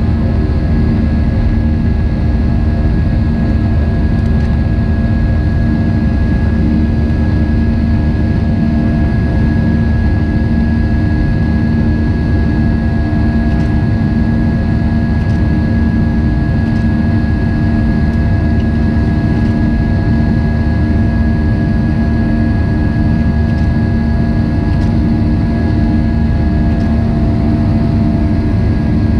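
Airbus A320 turbofan engines and airflow heard inside the cabin during the climb after takeoff: a steady deep drone with a constant high whine riding over it.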